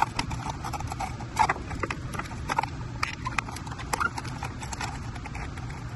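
Irregular clicks and taps of wiring and a small plastic module being pushed back into an e-bike's battery compartment, over a steady low background noise.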